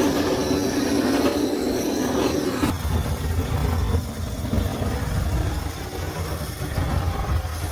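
Strong wind blowing, a steady noisy rush with a deep rumble. About three seconds in the sound changes abruptly, leaving mostly the low rumble.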